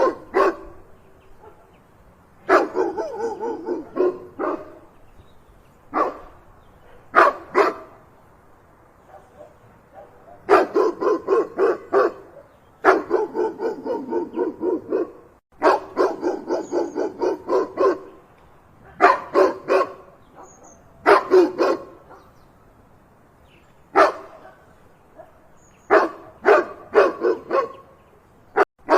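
Dog barking in repeated volleys of quick barks, several barks a second, separated by short pauses.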